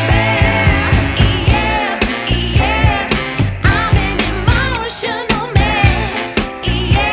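Background pop song with singing over a steady beat.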